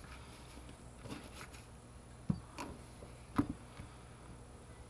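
Handling noise from a corded impact drill being put down on a work table: a few light knocks and two sharper thumps, about two and three and a half seconds in, as its plastic body and side handle meet the table.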